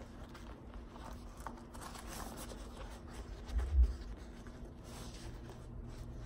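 Soft rustling and handling of a printed vinyl banner as it is rolled up by hand, with one dull thump about three and a half seconds in.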